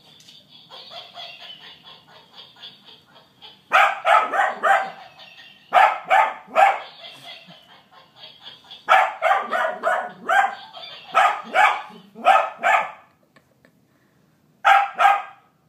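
A toy monkey's electronic laugh chatters faintly at first. Then a Cavalier King Charles spaniel barks at it in quick bursts of three or four sharp barks, several times over.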